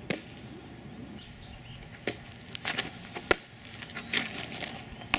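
Outdoor ambience with scattered sharp knocks and taps. The loudest comes a little over three seconds in, and a cluster of softer taps follows near the end.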